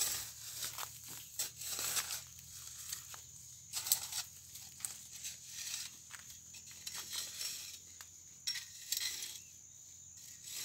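A long-handled hoe chopping and scraping into dry dirt in irregular strokes, with loose earth crumbling, as soil is dug away from a cassava plant's roots.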